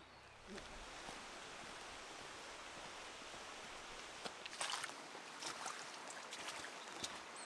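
Steady outdoor hiss with a hiker's footsteps crunching and scuffing on a wet gravel track, clustered in the second half.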